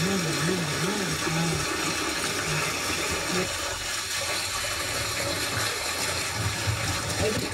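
Water flowing and splashing, a steady rushing noise, as a whole goat carcass is washed by hand in a large pot of water. A low wavering tone runs along with it for the first two or three seconds.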